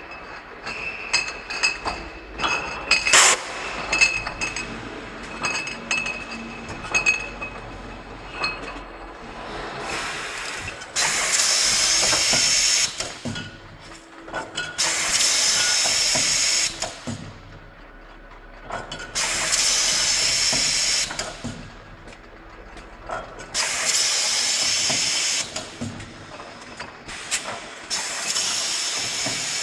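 Automatic triblock beer bottling machine (rinser, filler and capper) running, with glass bottles clinking and mechanical clicking through the first ten seconds. After that, loud hissing bursts of about two seconds each repeat roughly every four seconds.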